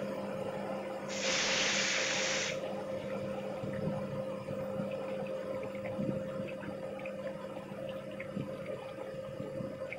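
A rohu fish head hits hot oil in a kadai: a loud burst of sizzling starts about a second in and lasts about a second and a half. It settles into a quieter sizzle with scattered small pops of spitting oil. A steady low hum runs underneath.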